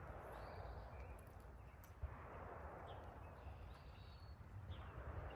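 Faint outdoor background: a soft, swelling hiss with a few faint bird calls and one light click about two seconds in.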